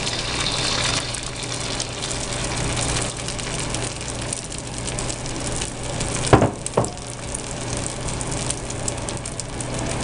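Beaten eggs sizzling and crackling in hot olive oil in a wok. The sizzle is strongest in the first second as the eggs are poured in, then settles to a steady sizzle. About six seconds in come two short knocks half a second apart.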